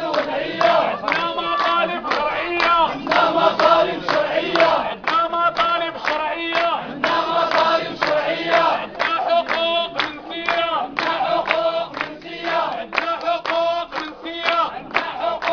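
A crowd of protesters chanting slogans together in unison, in repeated rhythmic phrases.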